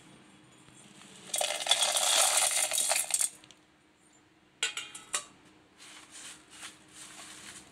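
Dry-roasted lentils, seeds, peanuts and dried chillies poured from a steel plate into a steel mixer-grinder jar: a dense rattle of hard grains hitting metal for about two seconds. A few sharp clicks follow, then light rustling.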